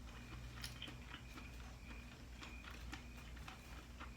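Close-miked chewing of boiled shrimp: faint, irregular wet mouth clicks.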